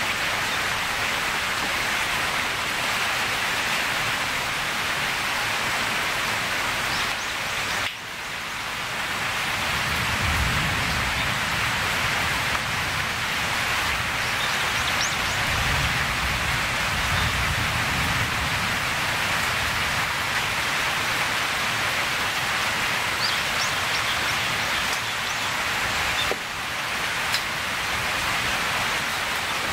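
Steady heavy rain falling on forest vegetation in a storm, an even hiss, with a low rumble swelling in for several seconds in the middle.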